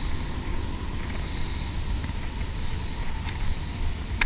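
Steady low rumble of wind buffeting the action camera's microphone, with a few faint ticks and one sharp click near the end.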